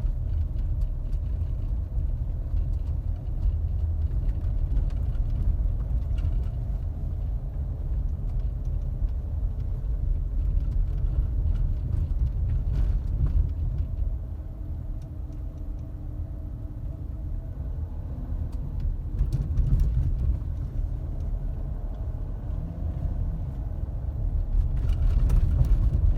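2012 Volkswagen Touareg TDI's V6 diesel engine running with a steady low rumble and a faint steady whine over it. The whine sounds like metal on metal, and its cause is unexplained even after a new pulley and tensioner.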